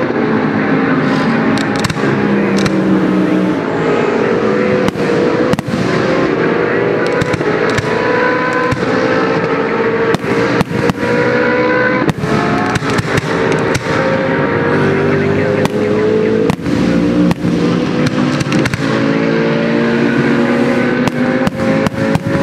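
GT race cars' engines screaming at speed, their pitch sliding up and down as they pass. Firework shells burst over them in many sharp bangs and crackles, coming thicker near the end.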